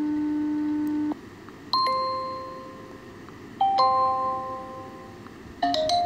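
The imo app's built-in alert sounds played back one after another on a phone. A steady low beep, the call_out tone, stops about a second in. A bell-like chime follows at about two seconds, then a two-note ding-dong chime at about three and a half seconds, each fading away. Another tone starts near the end.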